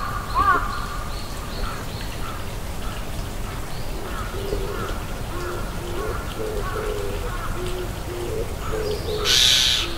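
A bird gives a run of short, low hooting notes that begins a few seconds in, after a single higher call near the start. Just before the end there is a short burst of noise.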